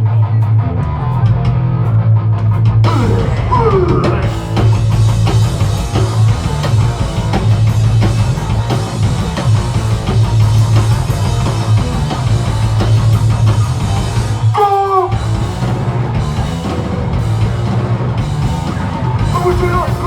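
Live heavy rock band playing loud: guitar, bass and drum kit. The cymbals come in about three seconds in, and the band drops out for a moment about fifteen seconds in before carrying on.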